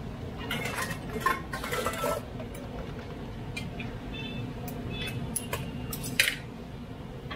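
Tea cups and a teapot clinking and clattering as they are handled, with sharp clicks scattered through and one short ringing clink about four seconds in, over a steady low background hum.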